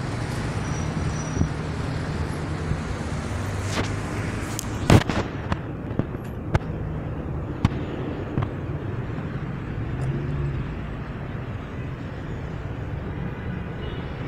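Steady city street traffic, car engines running and passing. A string of sharp bangs about four to eight seconds in, the loudest about five seconds in.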